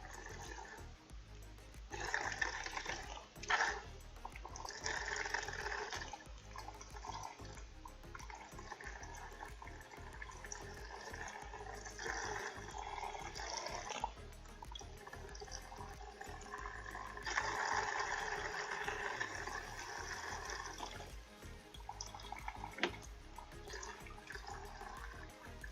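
Water running from a newly installed kitchen faucet into the sink as it is tested after the main valve is reopened. It runs in stretches, stopping and starting, with a couple of sharp knocks.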